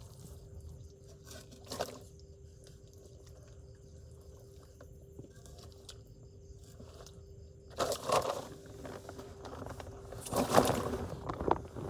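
Low steady background noise with a faint steady hum, broken by a short scrape about two seconds in and two louder bouts of scraping and rustling in the last four seconds.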